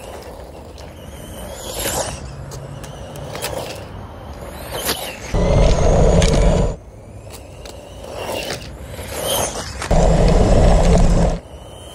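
RC van rolling over a gravel track, its tyres crunching and rattling over loose stones. Two loud rustling bursts, about five and ten seconds in, come from tall grass brushing against the camera mounted on the van.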